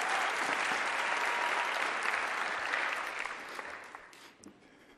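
Large theatre audience applauding, the clapping steady at first and then dying away about four seconds in.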